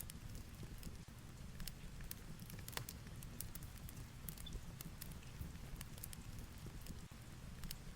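Fireplace crackling with irregular sharp pops over a steady low rumble of rain and wind.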